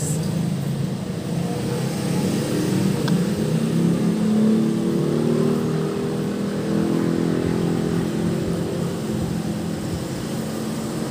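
A motor or engine running steadily, its low hum drifting up and down a little in pitch.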